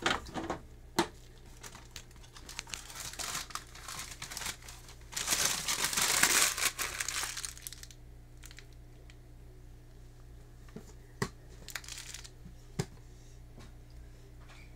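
Crinkling, rustling handling noise with scattered sharp clicks, loudest in a longer rustle about five to seven seconds in, over a steady low hum.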